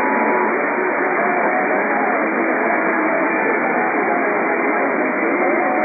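AM radio reception at night: dense static and interference with faint wavering music from a station underneath, all dull and muffled with no treble. A faint steady two-note tone stops about half a second in.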